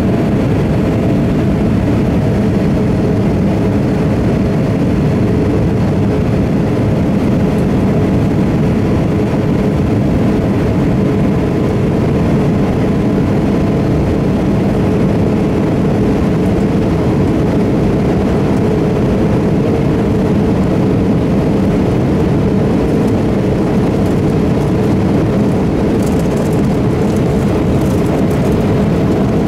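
Steady cabin noise inside an Embraer E170 in flight: the drone of its General Electric CF34 turbofan engines mixed with airflow, low and unchanging.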